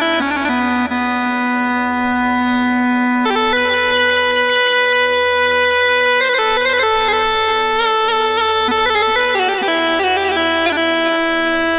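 Background music: a reedy wind-instrument melody of long held notes over a steady pulsing bass.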